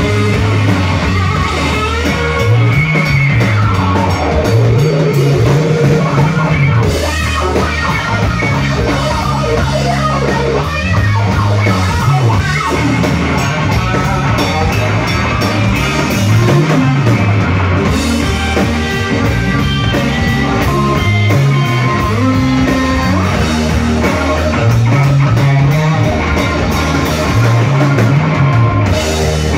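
Live blues-rock band playing loudly without vocals: a Stratocaster-style electric guitar plays lead over electric bass and a drum kit.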